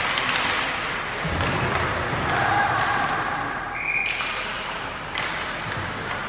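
Ice hockey play in an indoor rink: sharp knocks of sticks and puck against the boards over an echoing din of skates and voices.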